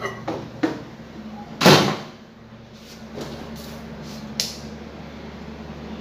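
Clicks and clunks of an Electrolux MEV41 microwave's door and a glass being lifted off the glass turntable and set down. There is one loud clunk a little under two seconds in, and a few lighter knocks after it.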